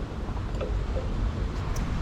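Steady low rumble of wind on the microphone, with a few faint light ticks in the second half.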